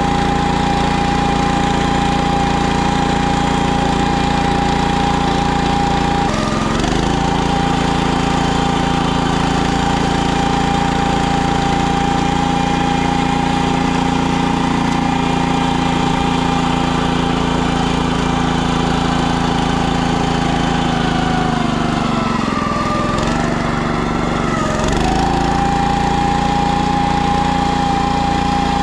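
Small gas engine of a PermaGreen ride-on spreader-sprayer running steadily, with a steady whine over it. The pitch dips briefly about six seconds in, and again for about three seconds later on, before picking back up.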